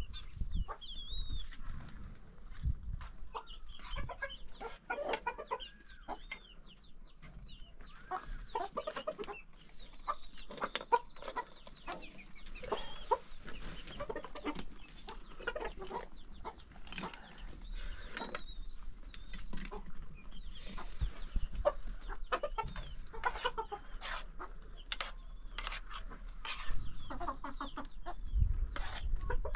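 Chickens clucking and calling in short, curved cries throughout, with scattered sharp clicks and knocks among them.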